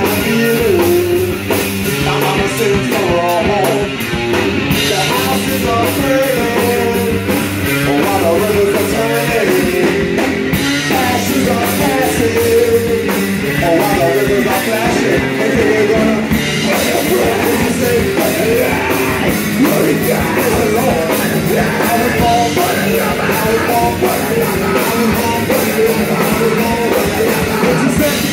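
Punk rock band playing live and loud: electric bass, guitar and drums, with a singer's voice over them.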